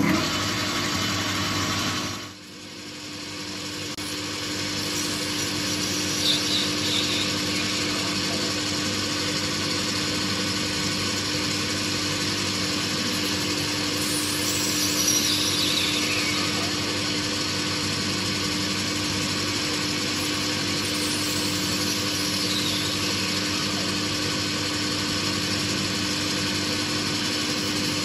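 Boxford BUD lathe running, its tool cutting into the end of a spinning brass bar: a steady motor hum under an even hiss of cutting, with a few faint falling squeals as chips come away. The sound starts suddenly and dips briefly about two seconds in.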